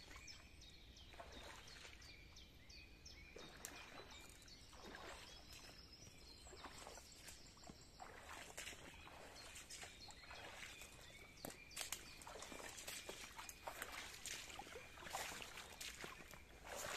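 Footsteps wading through shallow flood water in rubber boots, with irregular splashing and sloshing that grows louder as the wader comes closer.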